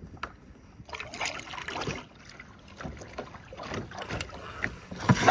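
Double-bladed kayak paddle strokes splashing and dripping in the water, in two spells, with a few sharp knocks near the end.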